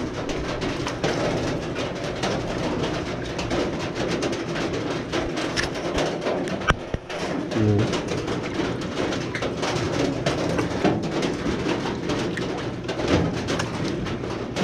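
Rain falling on a metal shed roof: a dense, steady patter of fine taps, loud enough to be noise.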